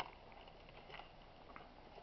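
Near silence: faint outdoor room tone with a couple of very faint small ticks.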